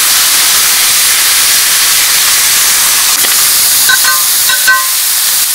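Chopped aromatics frying in hot oil in a metal wok: a loud, steady sizzle. About four seconds in come a few short metallic clinks against the wok as more ingredients go in.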